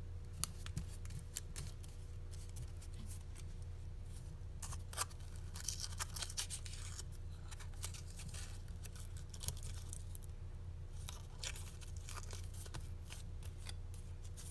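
Aluminium foil wrapped around a fountain firework crinkling and rustling under the fingers as it is handled, in irregular bursts of small crackles over a steady low hum.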